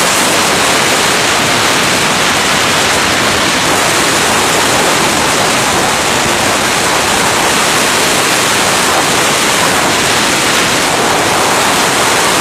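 Strong bura, the gusty katabatic north-east wind of the Adriatic coast, blasting across the microphone: a loud, steady rush of wind noise with no letup.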